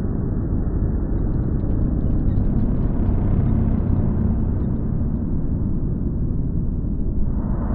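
Low, steady rumbling drone of a dark ambient soundtrack, with faint crackles over it in the middle stretch and a brighter hiss swelling in near the end.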